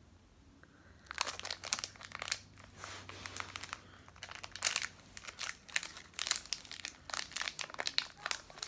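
A plastic candy wrapper crinkling as it is opened by hand, an irregular crackle that starts about a second in and carries on throughout.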